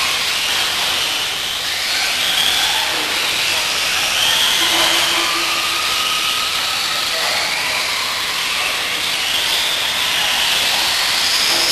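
Electric 1/10-scale RC off-road buggies racing: a steady hiss of motors, gears and tyres, with high whines that rise and fall as the cars speed up and slow down through the corners.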